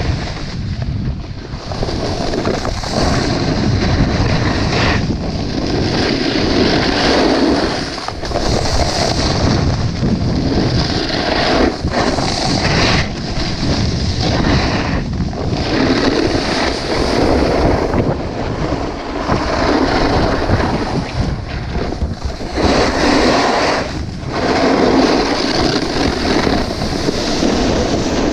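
Wind buffeting the microphone and a snowboard's edges scraping over hard, chopped-up snow. The scraping swells and fades every few seconds.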